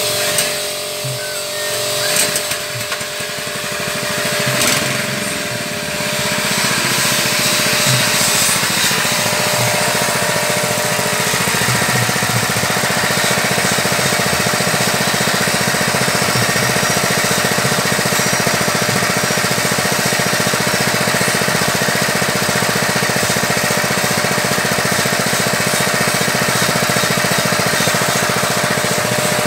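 Small petrol engine driving a floating fish-feed pellet extruder, running steadily; it gets louder about six seconds in and then holds an even speed.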